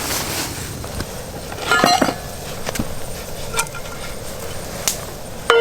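Metal camp cookware being handled: a ringing clink about two seconds in and a sharper, louder one near the end, with small scattered clicks and knocks between them.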